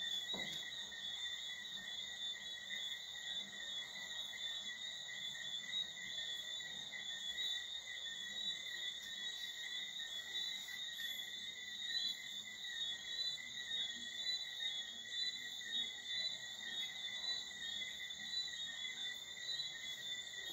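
Night chorus of many calling animals: a continuous high-pitched trill that holds steady with no breaks.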